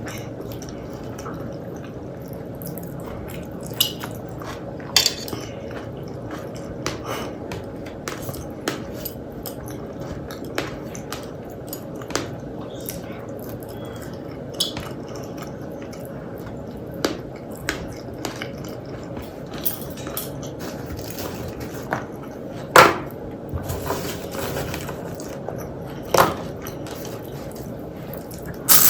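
Eating sounds from a plate meal of rice and dal: scattered sharp clicks and taps of dishes and cutlery, a few louder knocks near the end, over a steady background hiss.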